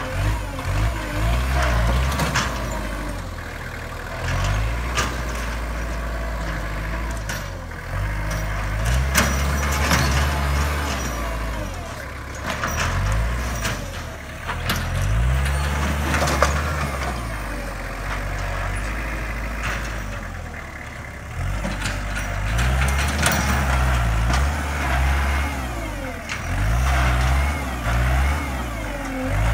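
Kubota compact tractor's diesel engine working under changing load. Its speed rises and falls again and again as the tractor drives back and forth with its front loader.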